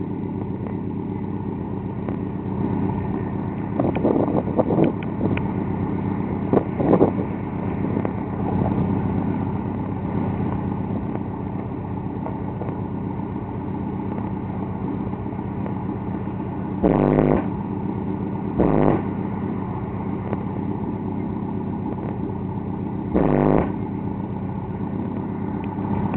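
Car audio SPL system with a steady low drone and several short, loud bass blasts from its subwoofers, three of them in the second half.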